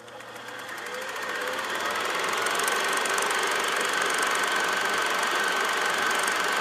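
Film projector running: a rapid, even mechanical clatter over a steady hiss and a high whine, fading in over the first two seconds and then holding steady.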